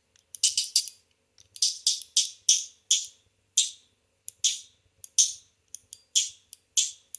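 Polished zirconium CHENYU SYNTONY fidget clacking as it is fidgeted: sharp, bright metal clicks with a short ring, some single and some in quick rattling runs, several a second with brief pauses.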